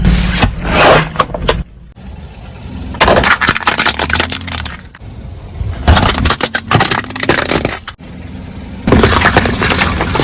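Objects crunching and cracking under a car's tyre, in four separate bursts about every three seconds, over the low rumble of the car's engine.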